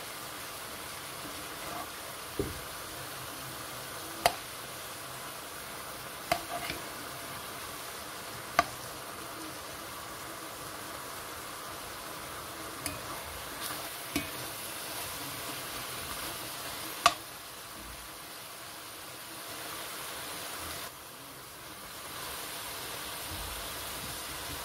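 Chicken fillet pieces and onion sizzling steadily in hot oil in a pan while they are stirred with a metal spoon, which clinks sharply against the pan every few seconds, about eight times.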